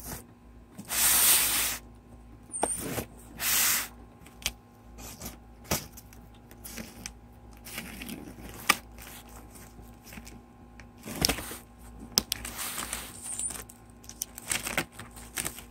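Packing tape on a cardboard shipping box being slit with a pocketknife and ripped open, with two loud rips in the first few seconds, then scattered clicks and cardboard flaps and papers rustling as the box is opened.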